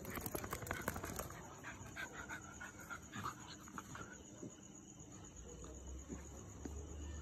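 Dogs play-fighting: panting, with a quick flurry of scuffling and rustling in the first second or so and scattered scuffles after.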